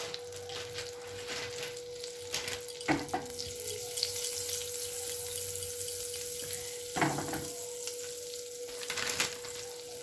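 Butter melting and sizzling in a hot nonstick pan, a fine steady hiss. A steady high hum sits underneath, and there are a couple of brief knocks, one about three seconds in and one about seven seconds in.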